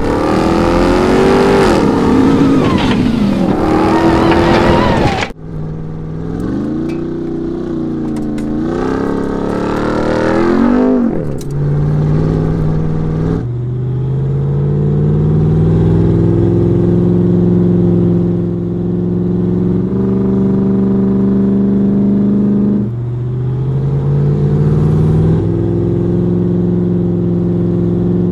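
Ram 1500 TRX's supercharged 6.2-litre V8 revving hard while its tyres throw gravel, a loud spray of grit over the engine. After a sudden cut, the engine pulls through its gears, the pitch climbing and then stepping down at each change, with stretches of steady running.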